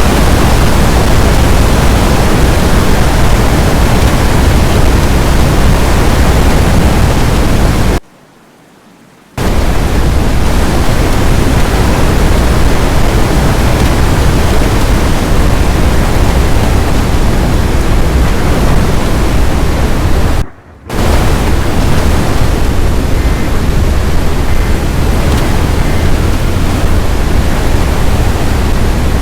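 Loud, steady rush of strong wind buffeting the microphone, heaviest in the low rumble. It cuts out abruptly for about a second twice.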